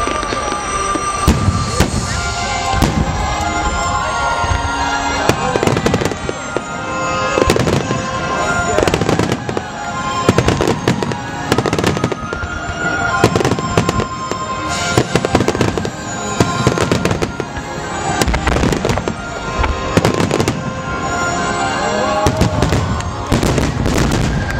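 Starmine fireworks shells bursting in rapid, irregular bangs, many close together, over music playing throughout.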